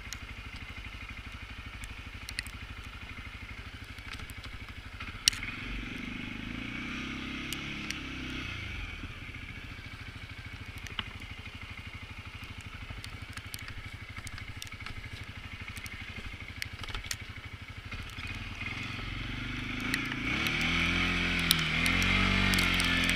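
CFMoto CForce ATV engine running steadily at low revs, revving up and back down about six seconds in, then revving louder over the last few seconds. A few sharp clicks sound here and there.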